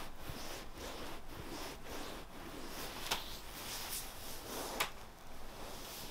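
Soft rubbing and rustling, repeated about every half second, with a few light clicks.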